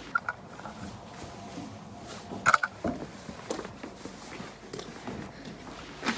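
Rustling with a few scattered clicks and clinks as a horse rug is fitted and its straps fastened, the sharpest clink about two and a half seconds in.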